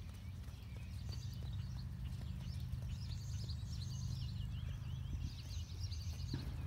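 Hoofbeats of a Kentucky Mountain Saddle Horse moving at its smooth four-beat gait across grass, over a steady low rumble.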